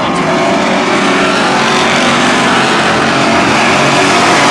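A pack of short-track stock cars racing past with their engines running together in one loud, steady sound that swells slightly near the end.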